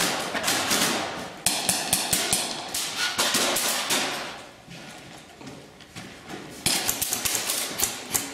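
Airsoft gunfire: rapid strings of sharp clicks and cracks in several volleys, dense through the first four seconds, easing off, then another burst near the end.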